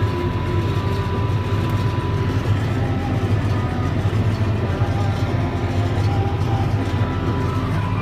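Case 7120 Magnum tractor's six-cylinder diesel engine running steadily under load while pulling a New Holland 660 round baler that is baling hay, heard from inside the tractor cab as a continuous low drone.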